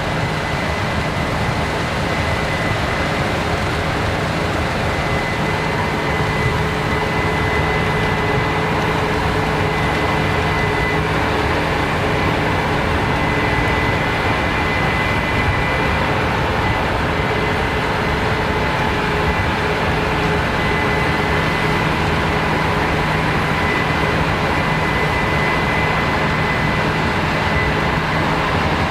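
Case IH 9260 Axial-Flow combine harvester running steadily while harvesting canola: constant machine noise with a steady high whine on top.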